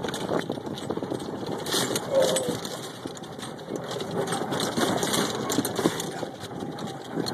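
Golf cart driving over grass: its motor running steadily, with frequent knocks and rattles from the cart jolting over the ground.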